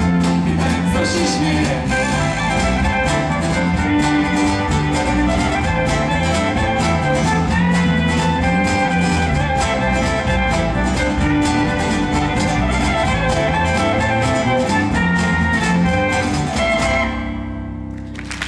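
Live folk band playing acoustic guitars and violin together to a fast, steady strum. The playing stops on a last chord near the end and rings away.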